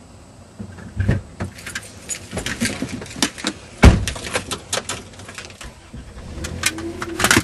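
A run of sharp clicks and clatters of handling noise, with one heavy thump about four seconds in.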